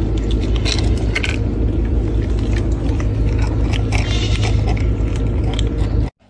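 Kittens crunching dry kibble from a metal bowl, many small crisp crunches and clicks, over a loud steady low rumble.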